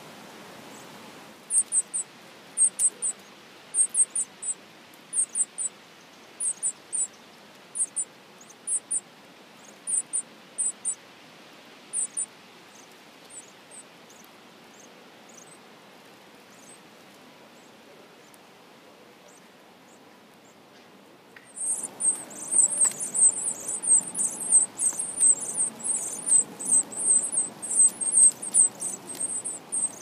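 Northern cardinal nestlings calling from the nest. Short, high, thin chirps come in small clusters about once a second at first, then die away, and about two-thirds of the way through a dense run of high-pitched begging squeaks starts suddenly and keeps going.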